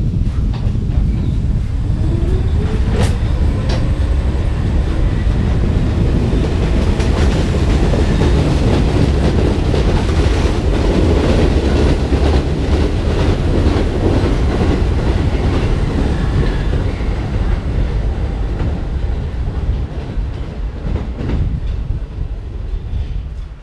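Staten Island Railway R44 subway train rolling past on the rails. A motor whine rises in pitch in the first few seconds as it gathers speed, and the wheels click steadily over the rail joints. The sound fades in the last few seconds as the last car goes by, then cuts off abruptly.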